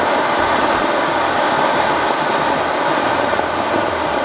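A lit Sivakasi fancy firework, the 'Kurkure' item, burning with a steady, loud hiss of sparks and no bangs.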